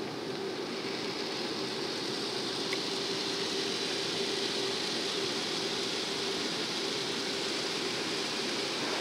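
Automatic car wash spraying water and foam onto a car's windscreen, heard from inside the cabin: a steady hiss over a constant low hum, the hiss growing brighter a couple of seconds in.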